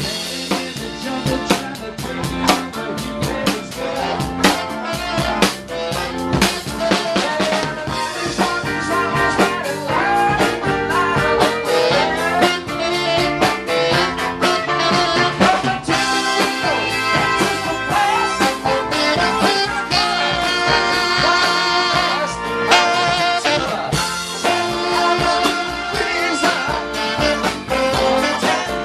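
Live band music with a steady drum-kit beat.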